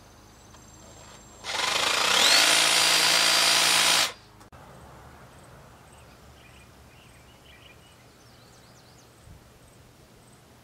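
Electric power tool motor spinning up with a rising whine, running steadily for about two and a half seconds, then cutting off abruptly. A few faint bird chirps follow.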